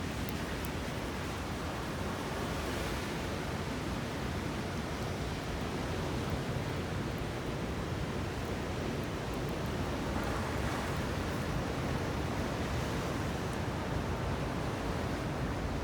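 Ocean surf washing ashore steadily, an even rush of noise heaviest in the low end.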